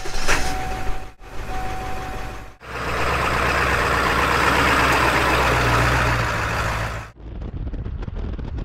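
Pickup truck engine started and running, heard in short cut-together pieces: a click and a steady tone at first, then the engine running loud and steady for about four seconds. Near the end it cuts to quieter driving noise with wind on the microphone.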